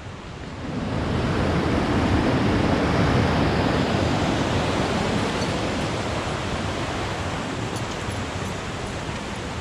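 Mountain creek rushing and splashing over rocks in a small cascade. The rushing swells about a second in and slowly eases off.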